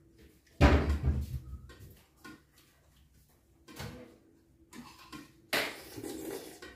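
A sudden heavy thump about half a second in, then softer knocks and a short rush of noise near the end: knocking and handling sounds at a table during a meal.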